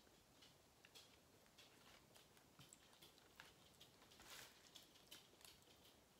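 Near silence with a few faint, scattered clicks and soft scrapes of a plastic fork against a foil takeout tray.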